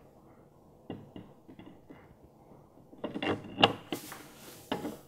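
Metal clinks and scrapes as an AP Racing brake rotor is fitted onto the car's front hub. A few faint clicks come about a second in, then a louder cluster of clinks about three seconds in and one more near the end.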